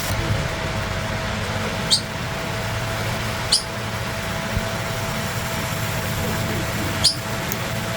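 Latch hook tool pulling yarn knots through rug canvas: a sharp little click three times as the latch snaps shut, over a steady low hum.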